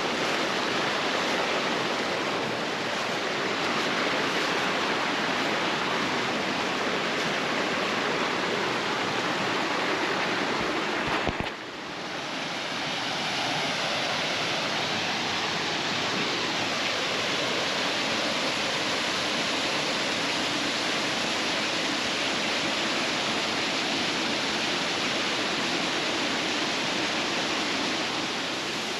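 Steady rush of a waterfall and its creek, with a brief knock and drop in level about eleven seconds in.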